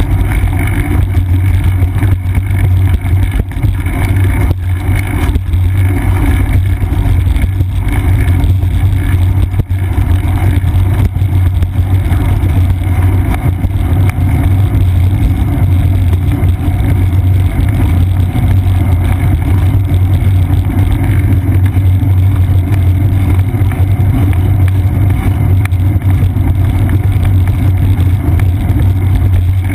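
Steady low rumble of a bicycle rolling along a paved path, picked up through the seat-post mount of a GoPro Hero 2: tyre and frame vibration with some wind, loud and unbroken.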